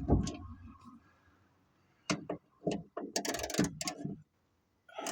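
A new car trunk latch being worked by hand: a low thump at the start, then a run of sharp clicks and a short metallic rattle in the second half as the latch mechanism is pushed and moved.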